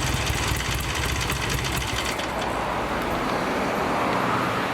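1951 BSA 500cc motorcycle engine idling lightly with an even, rapid beat, running again after standing unused for over a year. About two seconds in, its low note drops away, leaving an even rushing noise.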